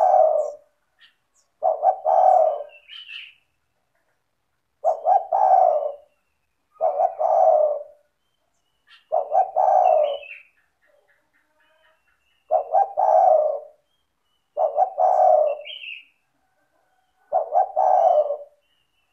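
Spotted dove cooing steadily: the same phrase of a few quick notes run into a longer coo, repeated every two to three seconds. Faint short high chirps sit between the phrases.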